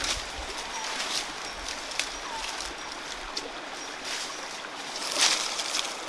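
Water splashing and sloshing over a steady rush of a stream, with a louder splash about five seconds in.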